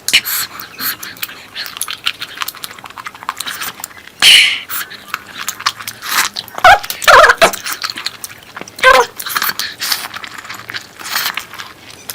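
Close-miked eating: wet chewing and lip smacking, a continuous run of small clicks, with louder wet bursts about four seconds in, around seven seconds and about nine seconds in.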